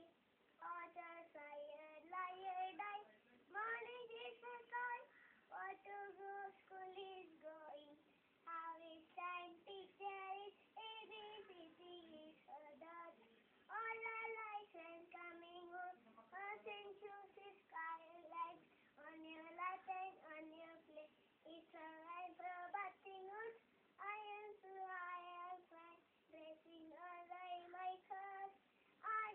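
A three-year-old girl singing nursery rhymes on her own, with no accompaniment, in short sung phrases with brief pauses between them.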